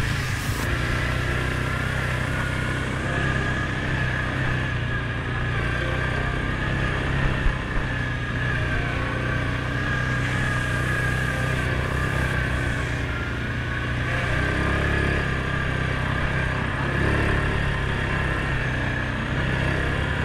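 Suzuki KingQuad 750AXi ATV's single-cylinder engine running steadily under way on a dirt trail, with a steady high whine over the low engine note.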